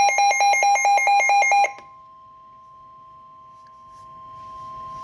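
Rapid electronic alert beeping from a weather radio, about eight beeps a second, which stops just under two seconds in. A steady single-pitch weather radio alert tone then sounds, starting faint and growing louder; it is the warning tone that comes before a broadcast warning.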